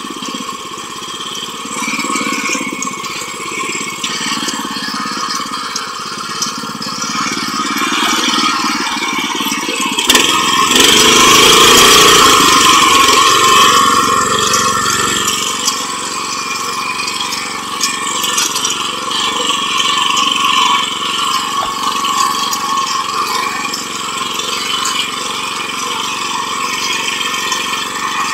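A 7 HP rotary tiller (power weeder) engine running steadily under way. It grows louder about a third of the way in for several seconds, then settles back.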